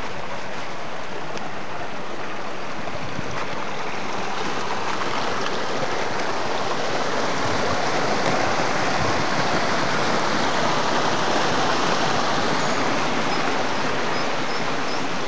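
Small woodland brook running over stones, a steady rush of water that grows a little louder midway through.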